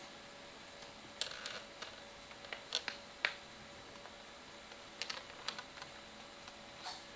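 Scattered short clicks and taps in small irregular clusters, over a faint steady hiss.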